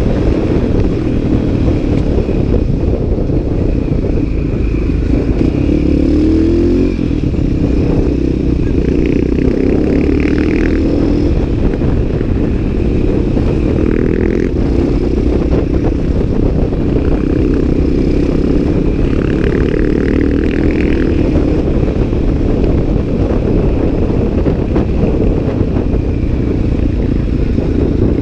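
CCM 604 supermoto's single-cylinder Rotax four-stroke engine under way, its pitch rising again and again then dropping back as it pulls through the gears, with heavy wind rumble on the microphone.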